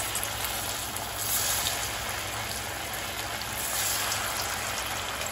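Hot oil sizzling steadily in a steel kadhai as slices of steamed colocasia-leaf roll deep-fry.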